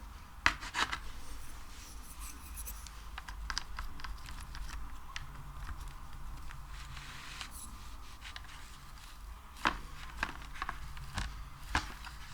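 Sticky material being worked and rubbed, giving scattered small crackles and clicks, with a sharper click about half a second in and two more near the end.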